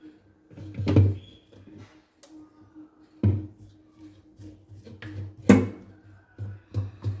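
Soft background music with three loud dull thumps, about a second in, past three seconds and past five seconds, and lighter knocks near the end, as dough is worked out of a bowl into a baking pan.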